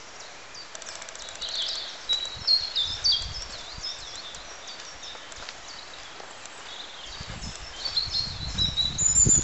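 Several small birds singing, with quick high chirps and trills throughout. From about seven seconds in, irregular low thuds of footsteps on the path come in under the birdsong and get louder.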